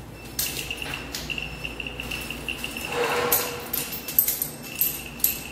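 Metal clicks and small knocks, with keys jangling, as a control-cable connector is fitted onto the lock assembly of an 880 gamma radiography projector. A few sharp clicks come near the end.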